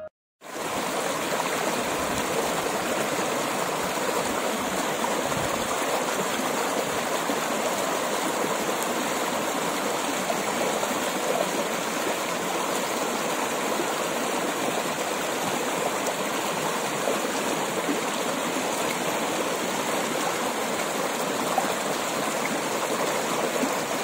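Shallow stream rushing and splashing over rocks and small drops in a volcanic cold-lahar channel, a steady rush of water that starts about half a second in.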